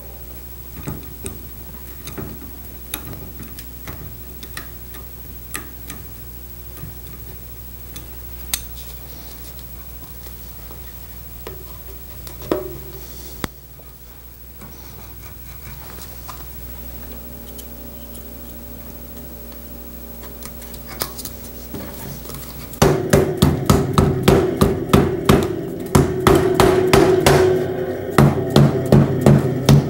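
Rubber mallet tapping snap-on windlace onto the edge of a steel bucket-seat frame: rapid, loud strikes, several a second, starting about three-quarters of the way in. Before that there are scattered light clicks of the frame being handled over a low steady hum.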